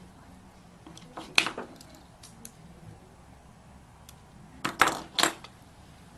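Small metallic clicks and clinks of jewellery pliers and a metal crimp cover and wire being handled: a quick cluster about a second and a half in and another about five seconds in, with a few faint ticks between.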